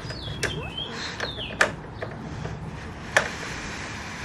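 Metal hardware and tools clinking, with four sharp clicks spread over a few seconds, and a few high chirps near the start.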